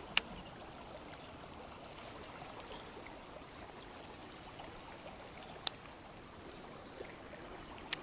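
Steady hiss of heavy rain and a swollen river flowing, broken by a few sharp clicks, the loudest about a quarter of a second in and again near six seconds.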